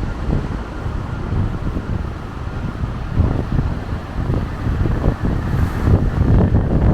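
Strong wind buffeting a small camera's built-in microphone, a low rumbling rush that swells and drops unevenly with the gusts.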